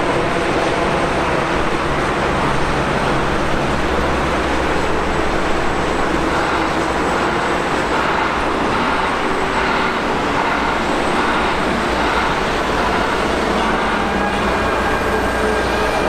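Steady road noise of highway traffic, cars and trucks passing continuously, with a low hum underneath.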